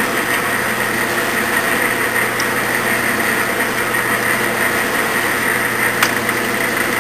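Clausing metal lathe running steadily under power feed, the carriage travelling on the engaged half nut for a single-point threading cut: an even hum of motor and gearing with a steady whine. A single sharp click sounds about six seconds in.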